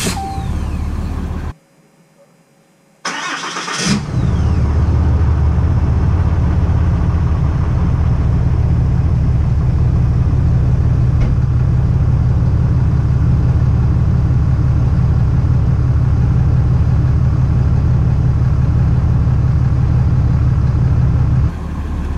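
2021 Ram 2500's 6.7-litre Cummins inline-six turbodiesel cold-starting after a few seconds of preheat on a chilly morning. It catches about four seconds in and settles into a steady, low, evenly pulsing diesel idle at the tailpipe. Near the end it is heard quieter from inside the cab.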